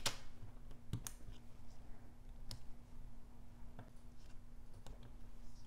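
A few faint, scattered clicks and taps as a pen-style pick-up tool lifts adhesive-backed matte decorative dots off their sheet and presses them onto a paper card, over a faint steady hum.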